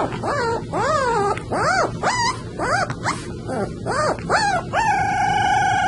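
A puppy howling: a string of short yelping calls that rise and fall in pitch, about two a second, then one long held howl starting near the end.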